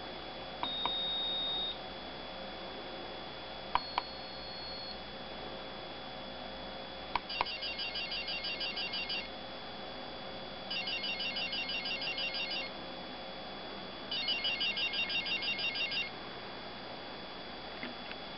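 Piezo buzzer on a microcontroller breadboard circuit sounding electronic tones: a steady high beep of about a second, then a slightly higher beep, then three ringtone-like bursts of fast repeated beeps, each about two seconds long. Push-button clicks come before several of the tones.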